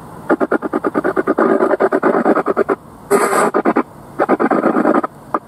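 Spirit box sweeping through radio stations: choppy radio static chopped into rapid pulses, about ten a second, with a few short breaks. A brief burst of brighter hiss comes about three seconds in.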